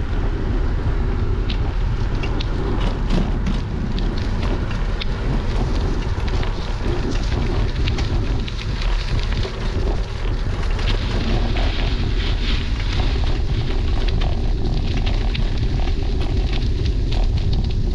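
Wind buffeting the microphone of a bicycle-mounted GoPro during a ride, over a steady rumble of tyres on the road, with frequent small clicks and rattles.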